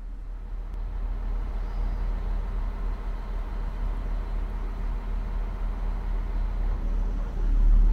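Diesel engines of a Class 642 (Siemens Desiro) railcar running as it stands, a steady low drone. Near the end they throttle up and get clearly louder as the train starts to pull away.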